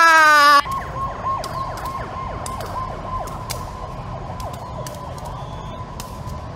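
A very loud drawn-out cry, rising then falling in pitch, cuts off about half a second in. A siren follows: a steady high tone with quick falling sweeps about three times a second, the sweeps fading out near the end while the tone continues.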